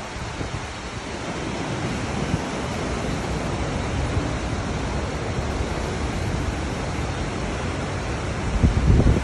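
Mountain river rushing over rock slabs and small cascades: a steady roar of water. Near the end, a gust of wind buffets the microphone with a low rumble.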